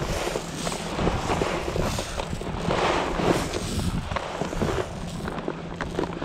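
Shelled corn scattered by hand onto dry dirt, followed by footsteps on the dirt, with wind on the microphone throughout.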